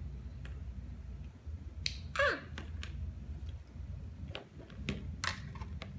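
Small plastic clip-on doll outfit pieces clicking against each other and tapping on a wooden tabletop as they are handled, in scattered sharp clicks over a low steady hum. A brief falling-pitched sound comes about two seconds in and is the loudest moment.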